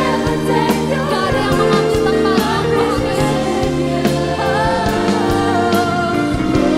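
Live contemporary Christian worship song: a male worship leader sings the melody into a handheld microphone over instrumental accompaniment with a steady beat.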